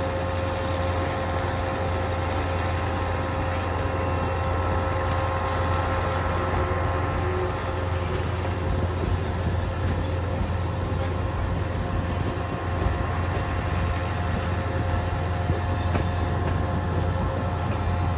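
Kuranda Scenic Railway passenger train running steadily around a curve, heard from inside a carriage: a constant rumble of wheels on track. A high-pitched squeal from the wheels on the curve comes and goes several times.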